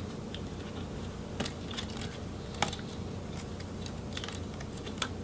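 Scattered light clicks and taps, about half a dozen, from hands and a screwdriver working on parts and wires inside an opened laptop, the sharpest about two and a half seconds in, over a faint steady low hum.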